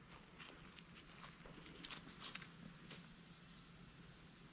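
Steady high-pitched drone of insects in the woods, with a few faint crackles scattered through it from footsteps in the leaf litter.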